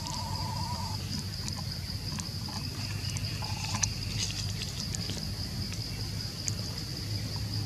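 A steady, high-pitched insect chorus, with a short wavering call near the start and another about three and a half seconds in.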